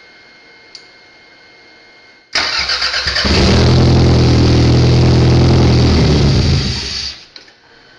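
A freshly installed 1993 Toyota engine in an MR2 cranking for about a second, catching and running steadily on its first start, then stopping about seven seconds in.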